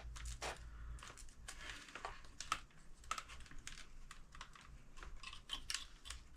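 Faint, irregular clicks and light taps of small parts and tools being handled on a workbench.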